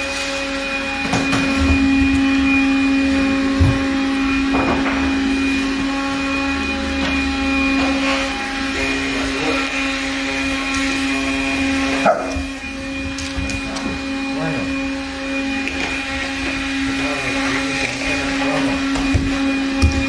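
Household vacuum cleaner running steadily with a constant motor whine, and a few short knocks as the nozzle bumps about.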